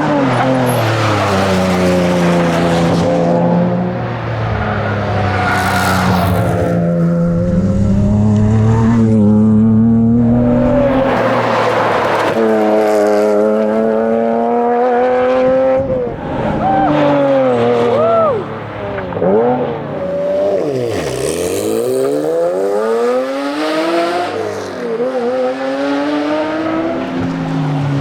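Porsche Cayman engine being driven hard at racing pace, its pitch climbing under acceleration and dropping at each gear change or lift, over and over. In the second half the pitch swoops up and down more sharply, as with quick downshifts and blips through corners.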